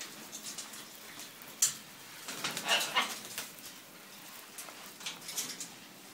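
Scarlet macaws in a metal cage: scattered light clicks and rustles from the wet birds, a sharp click about one and a half seconds in, and a short macaw call in the middle, about two and a half to three and a half seconds in.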